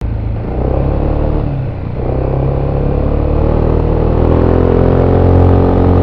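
Voge SR4 Max scooter's engine through its stock exhaust, heard on board while riding. It eases off briefly about two seconds in, then pulls again, getting louder and rising a little in pitch toward the end.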